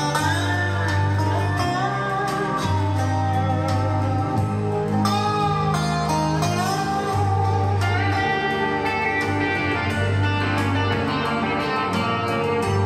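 Recorded guitar music with a deep bass line, played back through a hi-fi system: an Arcam FMJ CD17 CD player and Audiolab 8200A integrated amplifier driving AR 308 HO loudspeakers.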